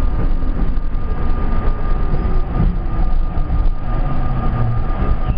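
R32 subway train pulling into a station: a steady rumble of wheels and running gear on the rails, with a steady high whine running through it.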